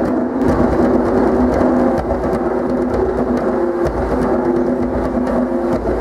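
An ensemble of djembe hand drums played together in a dense, continuous rhythm, with a steady held tone underneath.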